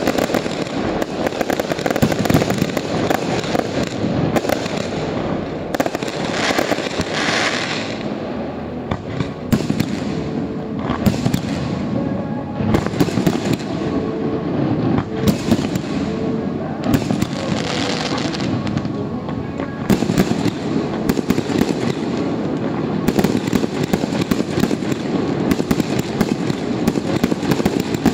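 Fireworks display: a dense, continuous barrage of bangs and crackling aerial bursts with no pause.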